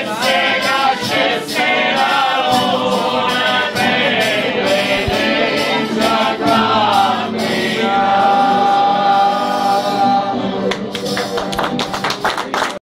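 Men's voices singing a traditional Abruzzese Holy Week folk chant together, accompanied by a diatonic button accordion (organetto). About two-thirds of the way through they hold one long note, and the sound cuts off abruptly just before the end.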